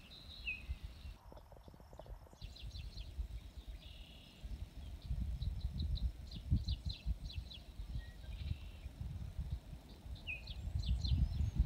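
Outdoor ambience: small birds chirping in short runs of quick high notes, a few times, over a low, uneven rumble.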